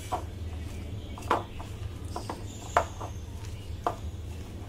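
Hands mixing sliced onions and spices into gram flour in a glass bowl, with about four short, sharp clicks of the hand against the bowl over a steady low hum.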